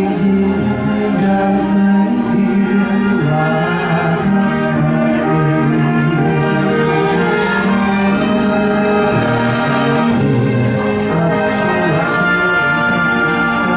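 Live orchestral music from a navy band: a melody carried on long, held notes, with light cymbal touches here and there.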